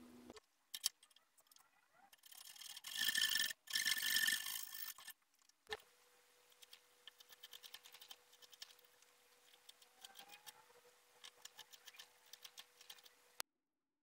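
A chisel paring a small ebony block held in a bench vise: a run of small sharp ticks and crackles as thin chips come off. Before it, a louder scraping noise lasts about three seconds.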